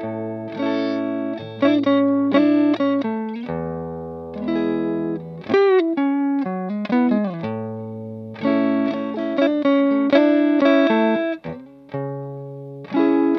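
Electric guitar played clean through a Fender Blues Junior III tube amp fitted with a Celestion Greenback Heritage Heavy Magnet speaker. It plays ringing chords and single notes, with several bent notes that slide up and back.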